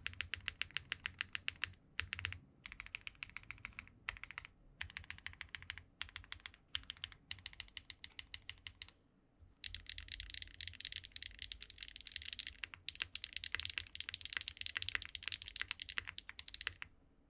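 Geonworks F2-84 mechanical keyboard with HMX Hyacinth V2U switches being typed on, clacky. The keystrokes come in short bursts with brief pauses, then turn to fast, near-continuous typing about halfway through.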